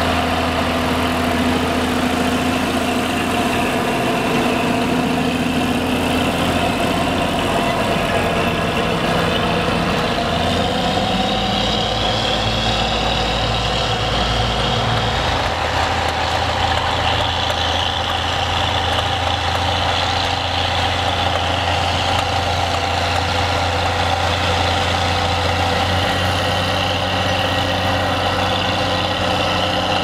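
Schlüter tractor's diesel engine working steadily under load while pulling a Kelly Diamond disc-chain harrow through cultivated soil. The engine note shifts about halfway through.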